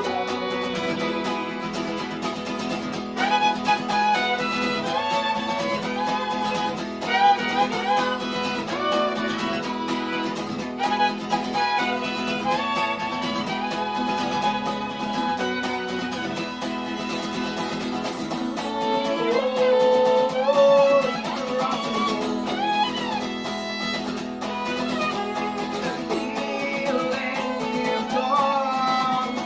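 Acoustic guitar strummed steadily under a fiddle playing a sliding melody line, an instrumental break with no singing.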